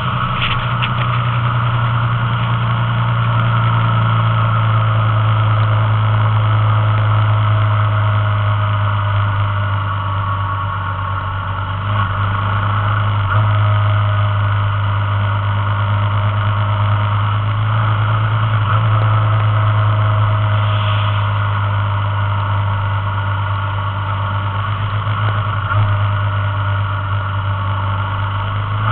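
Motorcycle engine running steadily at cruising speed, heard from on board the moving bike as a low, even drone, with a few slight changes in pitch along the way and a haze of wind and road noise over it.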